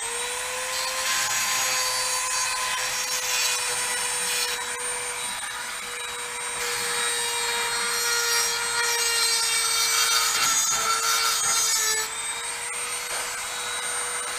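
Dremel rotary tool with a small tip running at high speed, a steady whine that spins up right at the start, with a scratchy grinding noise over it. It is grinding a bevel into the smashed U-joint bearing-cap bore of a driveshaft yoke so the new cap will seat.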